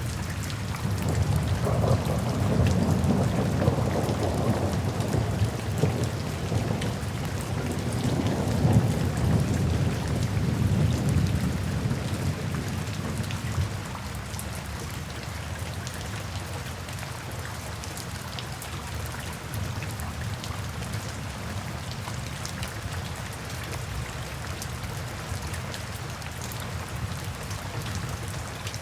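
Steady rain falling, with a long roll of thunder that rumbles low and heavy for the first dozen seconds or so before dying away, leaving only the rain.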